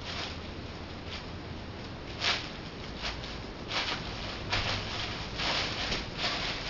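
Plastic bubble wrap crinkling and rustling in short bursts, about eight times, as it is trampled and handled.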